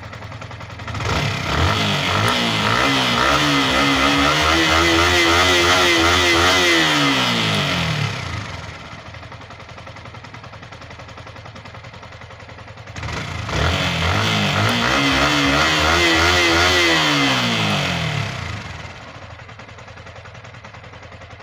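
Yamaha R15 V3's single-cylinder 155 cc engine revved twice, each time climbing, held high for several seconds and dropping back to idle. It runs clean, its valve tappet clearances freshly adjusted.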